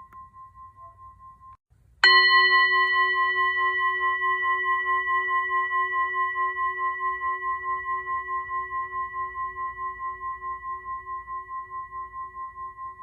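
Singing bowl: a fading ring dies out, then about two seconds in the bowl is struck once and rings on in a wavering, pulsing tone with several overtones, slowly dying away.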